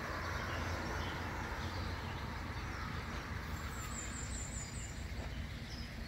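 Steady outdoor background noise with a low rumble of distant road traffic.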